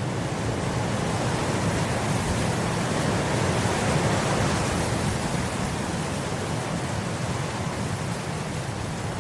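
Wind blowing across grass: a steady rushing noise that swells a little in the middle and eases off again.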